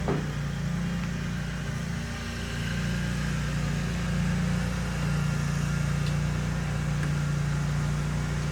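A steady low machine hum, with a short click at the start and a faint tick about six seconds in.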